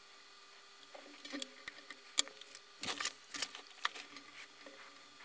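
A run of small sharp clicks and scratches from work on a small LED driver circuit board, loudest about two seconds in and settling after about four seconds.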